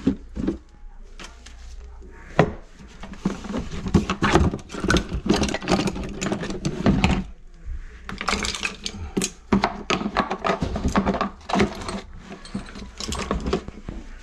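Irregular clatter of hand tools being handled: metal pliers clinking and knocking against each other and the floor, with a plastic bucket being shifted and lifted. The knocks are busiest through the middle of the stretch.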